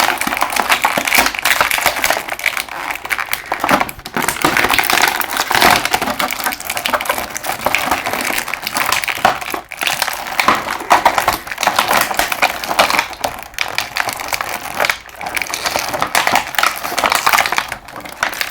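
Action figure packaging crinkling and crackling as it is handled and pulled apart, a dense run of small crackles that goes on without a break.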